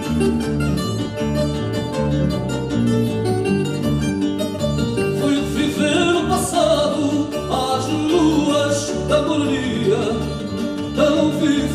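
Live fado: Portuguese guitar and classical guitar playing plucked melody and chords over a steady bass line, with a man's voice starting to sing about halfway through.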